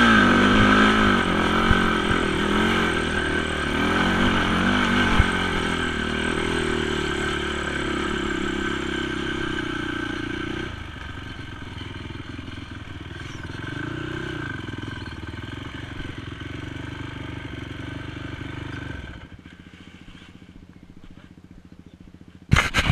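Honda TRX450 quad's single-cylinder four-stroke engine revving unevenly as it crawls over rocks, then settling to a lower, steadier running note about halfway through. Near the end it drops away much quieter, and a few sharp knocks follow at the very end.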